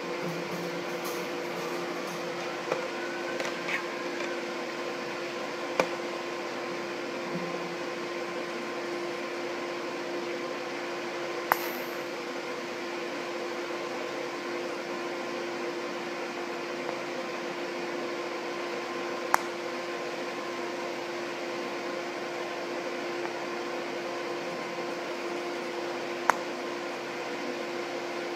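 TIG welding with a Thermal Arc Arcmaster AC/DC 200 amp HF TIG inverter: a steady hum and hiss from the machine and arc, with four sharp clicks spaced several seconds apart.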